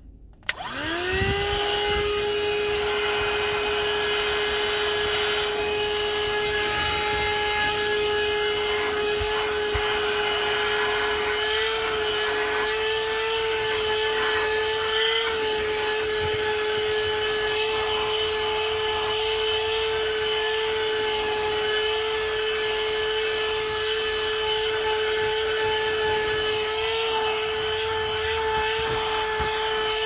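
A 12 V AutoGrandpa handheld car vacuum cleaner is switched on with a click. Its motor spins up within about a second to a steady high whine over rushing air as the bare nozzle works over a carpet mat. The pitch wavers slightly a few times.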